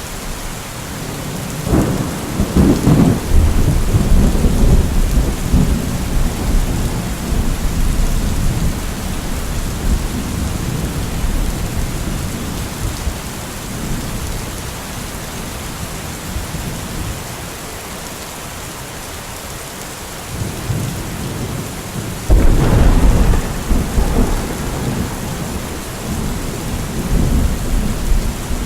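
Steady heavy rain with two rolls of thunder: one cracks in about two seconds in and rumbles away over several seconds, the other breaks in suddenly near the end, louder, and rumbles on.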